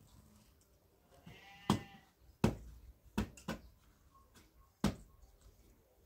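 A farm animal bleats once, a short wavering call about a second in. Around it come five sharp knocks or thuds, the loudest sounds here.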